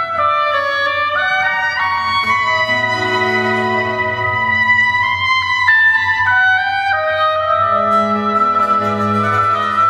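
Baroque chamber orchestra playing a slow movement: two oboes carry a held, stepwise melody over strings and a basso continuo bass line.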